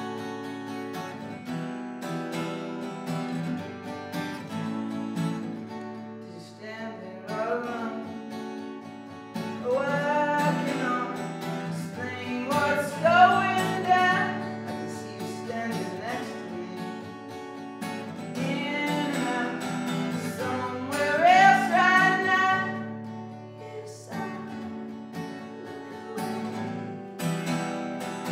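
Acoustic guitar strummed steadily, joined about seven seconds in by a man singing in long phrases, in a tiled bathroom.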